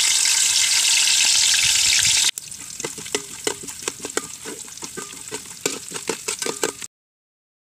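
Chopped coconut pieces sizzling loudly in hot ghee in an aluminium pot. About two seconds in, the loud sizzle stops abruptly and a quieter stretch of a steel ladle stirring follows, with many small clicks and scrapes against the pot. Near the end the sound cuts out to silence.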